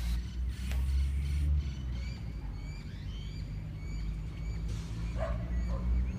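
Wind rumbling on the microphone under birds chirping over and over in short high notes; a dog barks briefly about five seconds in.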